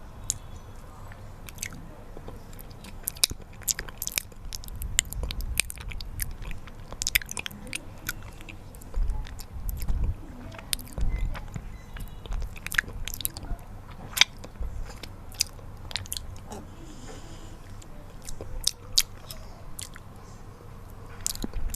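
Close-miked mouth sounds of honey being eaten: chewing and biting with many irregular, sharp, sticky clicks.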